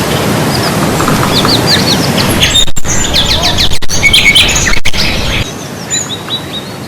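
Many small birds chirping, short quick rising and falling calls over a steady noise bed that gets quieter about five and a half seconds in.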